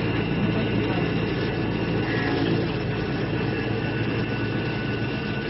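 CNC wood lathe running: a steady, loud machine drone with a constant motor hum under the noise of the machine at work.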